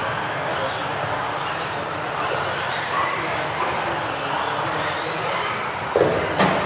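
Several electric off-road RC racing cars running on an indoor track, their motors whining in overlapping pitches that rise and fall as they speed up and slow down. Two loud knocks come about six seconds in.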